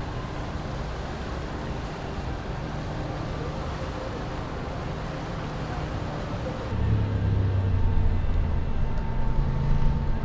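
Outdoor city ambience with a low engine drone. About two-thirds of the way in it changes abruptly to a louder, deeper engine hum.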